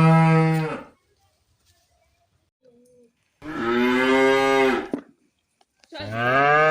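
Cow mooing: the tail of one long moo, a full moo in the middle, and a third moo starting near the end, with quiet gaps between them.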